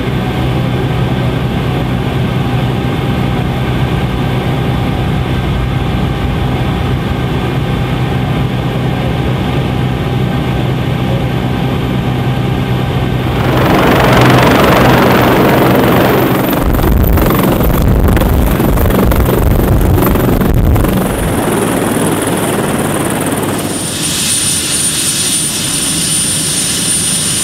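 Helicopter noise. For the first half it is a steady in-cabin drone of rotor and turbine during flight. About halfway it changes to a louder rush of rotor wash as the helicopter is low overhead. Near the end a high steady turbine whine comes in as it sits on the ground with its rotor turning.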